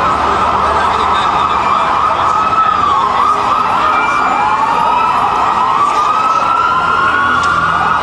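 Several emergency-vehicle sirens wailing at once, their rising and falling tones overlapping, over a wash of city street noise.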